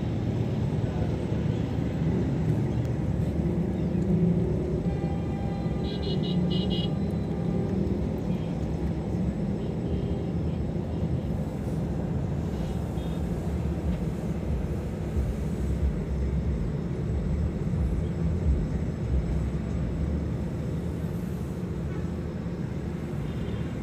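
Car road and engine noise heard inside the cabin while driving, a steady low rumble. About six seconds in, a brief high-pitched sound repeats a few times.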